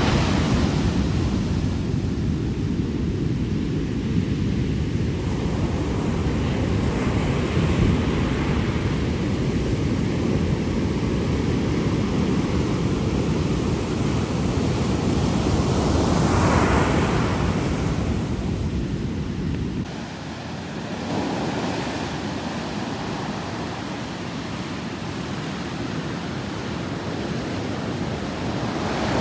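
Ocean surf: big waves breaking and white water rushing up the beach in a steady wash, with one louder crash about sixteen seconds in. Wind buffets the microphone. About twenty seconds in the sound changes abruptly to a lighter wash with less low rumble.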